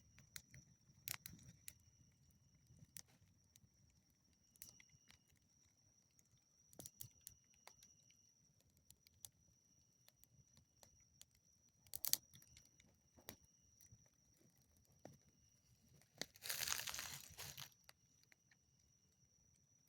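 Small wood campfire crackling faintly, with sparse sharp pops and a louder burst of crackling about sixteen seconds in, over a faint steady high-pitched tone.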